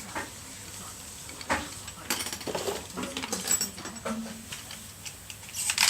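Plastic clicking and rattling from Beyblade Burst spinning tops and their launchers: a scattered run of sharp clicks, with quieter rattling between them.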